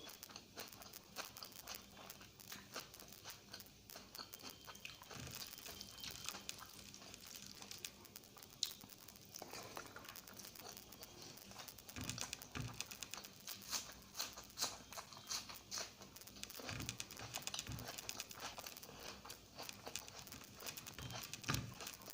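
Close-miked eating sounds: wet chewing and mouth clicks of a person eating egg curry with rice, with many small crackling clicks.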